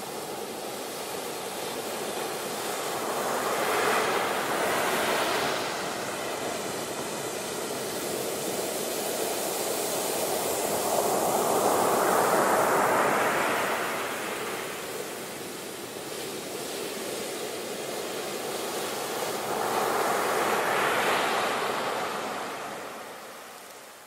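Ocean surf breaking on the shore: three waves crash about eight seconds apart, each a swelling and fading rush of foam, over a steady hiss of washing water.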